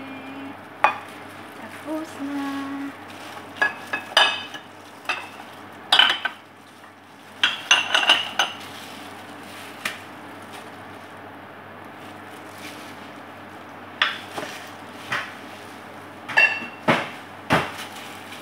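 A utensil clinking and scraping against a glass mixing bowl while cake-donut batter is stirred by hand, in irregular clusters of sharp clinks with short pauses between them.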